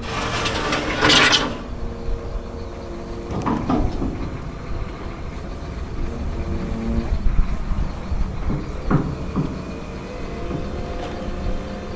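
A John Deere 350G excavator's diesel engine running, with the hydraulic pump's whine shifting in pitch as the boom and bucket are worked up and down. There is a loud rush of noise in the first second or so, and a few knocks as the linkage is cycled to check for play.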